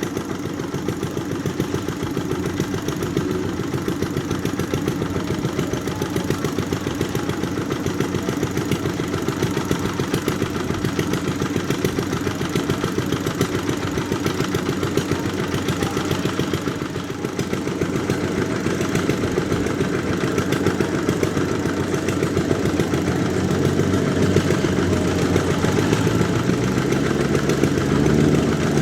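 Kubota rice combine harvester's diesel engine running steadily with a fast, even chugging; about two-thirds in, a deeper steady hum grows stronger over it.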